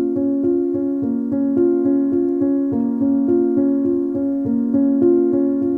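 Background instrumental music on a piano-like keyboard: a gentle melody of evenly paced notes over a steady, repeating accompaniment.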